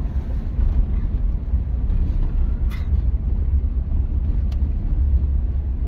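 Steady low rumble inside the cabin of a moving 2006 Mitsubishi Pajero iO: its 2.0-litre petrol engine and road noise at low speed, with two brief clicks midway.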